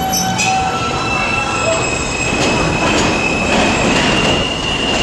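R160A-1 subway train moving off along elevated steel tracks: a steady rumble of wheels on rail with a high, steady squealing tone running over it.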